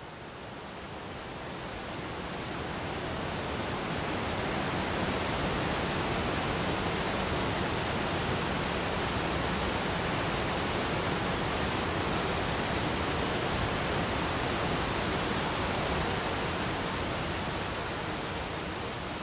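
Steady rush of a waterfall's whitewater. It fades up over the first few seconds and eases off slightly near the end.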